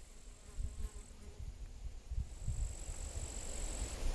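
A high, thin, steady insect trill that breaks off about a second in and starts again about two seconds in, running until shortly before the end. Under it is a low, irregular rumble.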